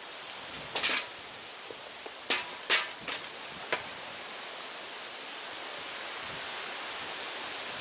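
A handful of sharp clicks and knocks, about five in the first four seconds, from handling parts during the work, over a steady hiss that slowly grows louder.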